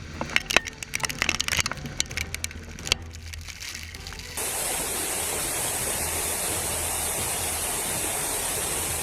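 Scattered sharp cracks and clatters, typical of debris coming down after the controlled blast on the dam spillway. About four seconds in this changes abruptly to a steady rush of floodwater pouring down.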